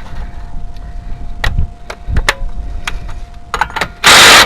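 A few metallic clicks and knocks of tools being handled, then near the end a power tool fitted with a 6mm bit starts up, very loud.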